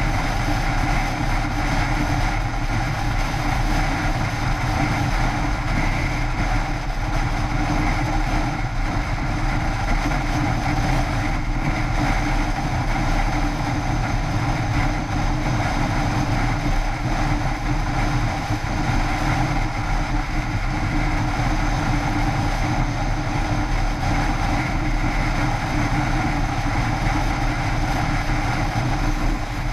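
Yamaha X-City scooter cruising at a steady highway speed: a constant engine drone mixed with wind rush and tyre hiss on wet asphalt.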